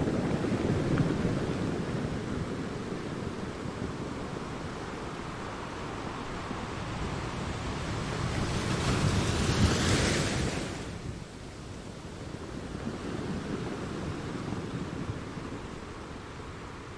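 Sea waves breaking on a rocky shore, with a steady wash of surf that rises and falls. About halfway through, a bigger wave surges in with a hissing rush, then falls away quickly, and a smaller swell follows.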